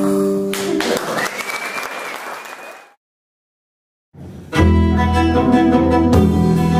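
A fiddle note ends a tune and audience applause breaks in, fading away over a couple of seconds before cutting to dead silence. About four and a half seconds in, the next klezmer piece starts on violin with double bass and drums.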